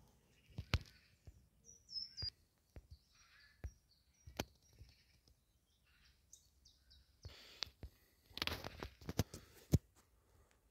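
Footsteps and irregular sharp clicks and crunches on a dry-leaf woodland path, with a longer crunching stretch near the end. A few short bird chirps sound over them, one a quick falling call about two seconds in.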